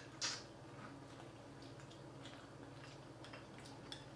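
Quiet table-eating sounds: faint scattered clicks and taps of chopsticks and spoons against bowls and takeout containers, over a low steady room hum. A short, sharp hissing noise stands out about a quarter-second in.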